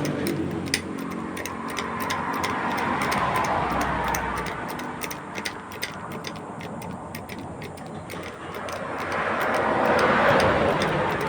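Motor vehicles passing on a road, the noise swelling and fading twice, with rapid faint ticking through the first part.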